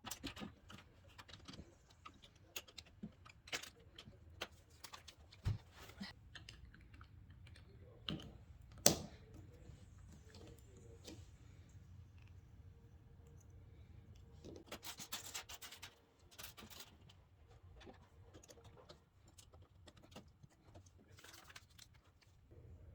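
LEGO pieces clicking and rattling as they are handled and pressed together: scattered light clicks, a sharper snap about nine seconds in, and a short run of rattling a few seconds later.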